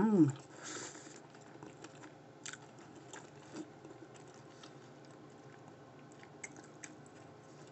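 A short hummed "mmm", then a crackly bite into a deep-fried sushi burrito about a second in, followed by close-miked chewing with scattered small crunches and mouth clicks.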